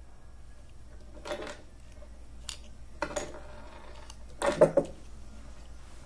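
A few separate light clicks and clatters of small plastic gears and metal parts as a washing machine spin timer is pried apart with a screwdriver, with the loudest clatter about four and a half seconds in.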